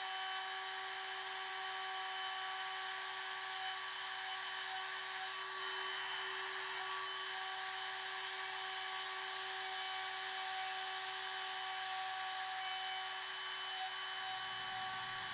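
Ridgid cordless trim router with a groove bit running steadily while cutting a shallow groove in a wooden sign: an even whine over a hiss that holds one pitch throughout.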